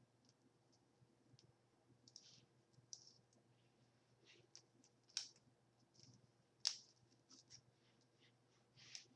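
Faint, scattered rustling and clicking of hair and foam flexi rods being twisted out of set hair by hand, with two sharper clicks a little past the middle.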